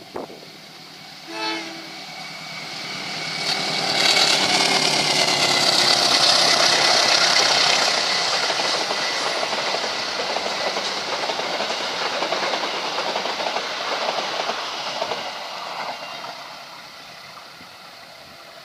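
Passenger train passing close by: a broad rush of wheel and rail noise builds up, is loudest about four to eight seconds in, then slowly fades as the coaches draw away. A short train horn blast sounds about a second and a half in.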